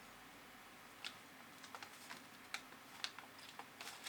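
Scattered light clicks and taps from small keyboard-kit parts and packaging being handled on a table, about eight in all, starting about a second in and coming a little more often toward the end.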